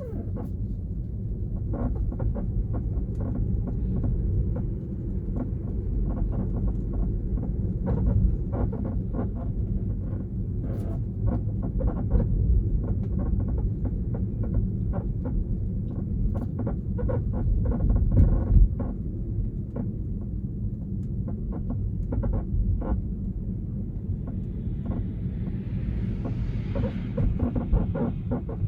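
Tesla Model 3 creaking while turning at low speed: many short, irregular creaks and clicks over the steady low rumble of the car rolling.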